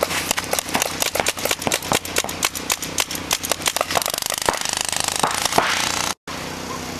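Reball markers firing: a fast run of sharp pops, several a second, becoming a quicker rattling burst about four seconds in. The sound cuts out briefly about six seconds in.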